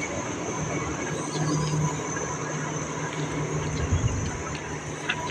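A small boat's engine running steadily at idle, a low hum under a steady rushing noise.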